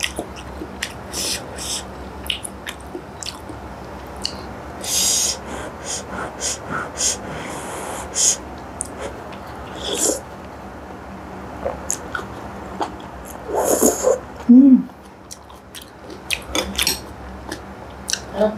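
Close-miked mukbang eating of soupy instant noodles: repeated slurps and chewing, with sharp clicks of the spoon and fork on the glass bowl. A short hum comes about three-quarters of the way through.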